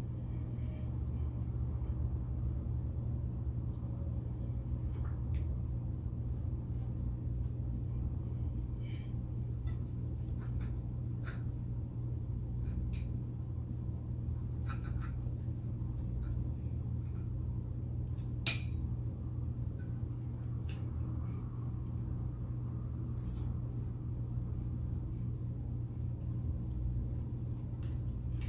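Close-up eating sounds: scattered soft clicks and taps of chewing and cutlery, with one sharper click about two-thirds of the way through, over a steady low hum.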